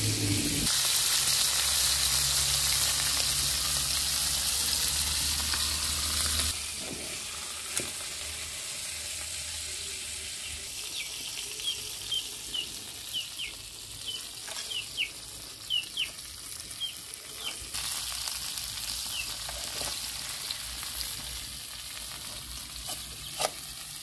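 Pieces of eel frying in hot oil in a metal kadai: a loud steady sizzle for the first six seconds or so, then a softer sizzle. A spatula stirs and knocks against the pan now and then.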